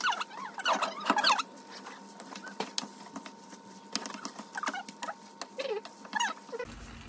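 A wooden spatula stirring and tossing sauced spaghetti and sausages in a frying pan: wet squelching squeaks that slide up and down in pitch, with scraping clicks against the pan, busiest in the first second and a half.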